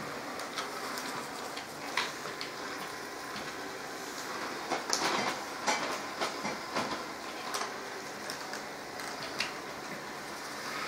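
Robot vacuum cleaner (LG Roboking) running with a steady whirr and a faint steady tone, over which come scattered knocks and clicks, several close together around the middle.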